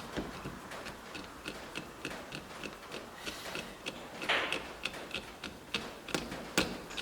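Ratcheting screwdriver clicking steadily, about four clicks a second, while tightening the mounting screws of a new door lever lockset, with a few louder metallic clicks and knocks near the end.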